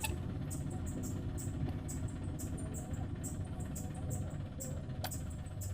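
Steady low hum with short high-pitched ticks repeating about three to four times a second.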